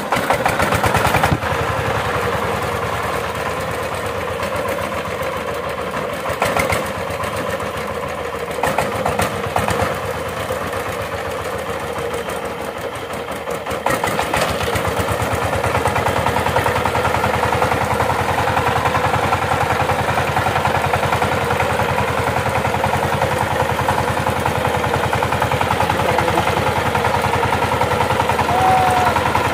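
Single-cylinder diesel engine of a Sifang walk-behind power tiller catching at the start and running with a steady chugging beat. About halfway through it gets louder as the tiller is driven forward under load.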